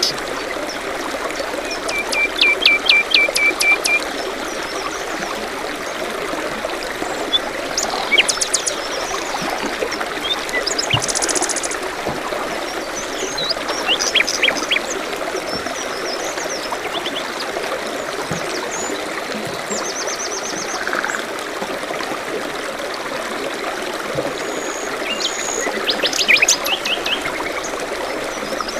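Songbirds chirping and singing in short quick series of notes, one after another, over a steady babble of running water from a stream.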